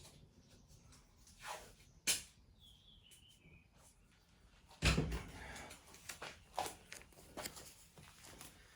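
Scattered clicks and knocks of hands handling tools and parts at a workbench. There is a heavier thump about five seconds in, then a run of lighter clicks, and a brief faint squeak near three seconds in.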